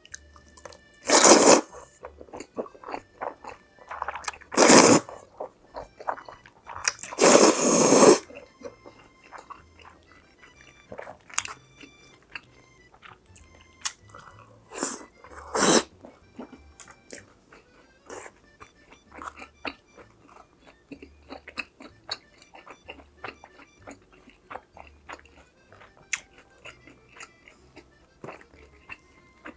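Crunching bites of crisp food and chewing, close to the microphone: three loud crunches in the first eight seconds, two more about halfway, then lighter chewing with soft wet clicks. Quiet background music plays underneath.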